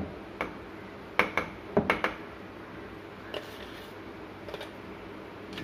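A spoon clinking and tapping against ceramic cups and a mixer jar while a thick cake batter is spooned out: a quick run of sharp clinks in the first two seconds, then a couple of fainter ones.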